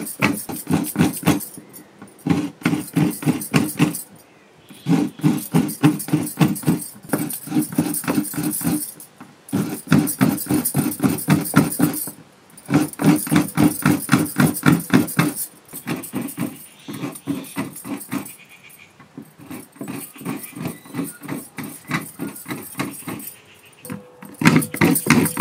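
Coconut halves being scraped on a hand coconut scraper: quick rasping strokes, about five or six a second, in runs of a few seconds broken by short pauses.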